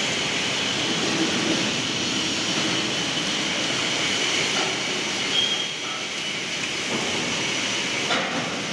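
Steady machinery hum and hiss of a workshop, even throughout with faint steady whining tones.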